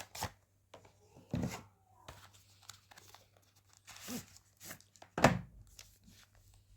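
Power bank's retail packaging being opened by hand: scattered tearing and crinkling with a few knocks, loudest about a second and a half in and again about five seconds in.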